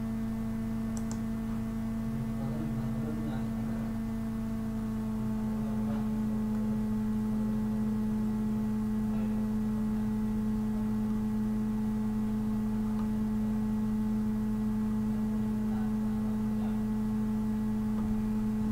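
A steady, even electrical hum with fainter overtones above it, and a few faint clicks, the first about a second in.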